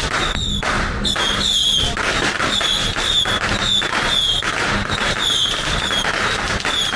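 Outdoor procession din: firecrackers crackling among crowd noise, with a short shrill note repeating about twice a second.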